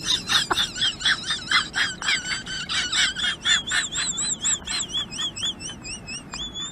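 Rapid, high chirping calls from a small animal, several a second, wavering in pitch and drawing out into longer warbling trills near the end.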